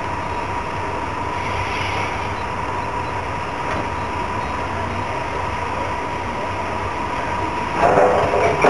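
Distant steam locomotive approaching slowly: a steady rumble and hiss with no distinct exhaust beat, and a steady tone running under it. A louder burst of sound comes just before the end.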